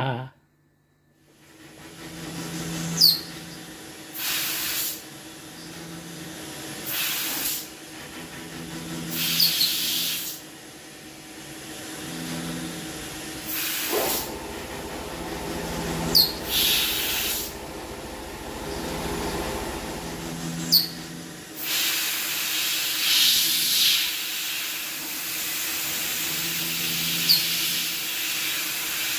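Home-built CNC router running a 6.8 mm twist drill through plywood hole by hole, with the compressed-air blast hissing in bursts every two to three seconds and brief sharp chirps between them. From about 22 seconds in, the air blast hisses steadily as its pressure is being turned up to a medium setting.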